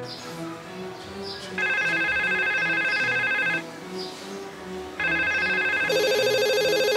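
A telephone ringing: two warbling electronic rings of about two seconds each, separated by a short pause, as a call goes through. Soft background music with a gentle melodic line plays underneath.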